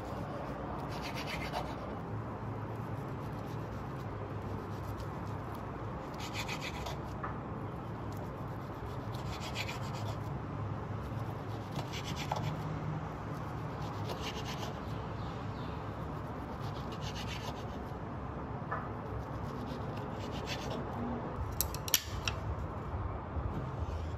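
Short rasping scrapes repeated every few seconds, each about half a second long, over a low steady hum, with a sharp click near the end.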